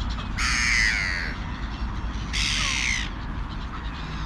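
Crow cawing twice, two harsh calls about two seconds apart, the first a little longer than the second.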